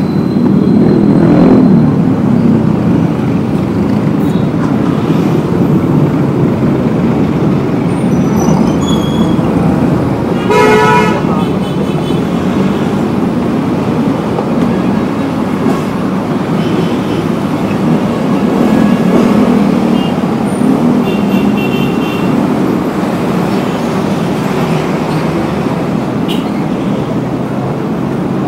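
Heavy city street traffic: a steady rush of passing cars, buses and trucks, with a horn honking once for about a second about ten seconds in.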